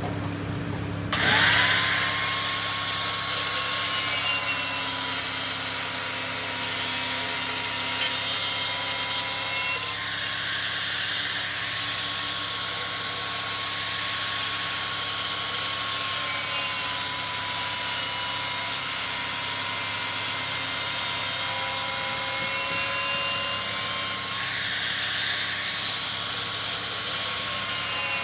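A machine's motor hums steadily. About a second in, a power tool starts working the metal of the flywheel, a loud, steady hiss with a whine that drifts slightly up and down in pitch, as in machining or grinding the flywheel face.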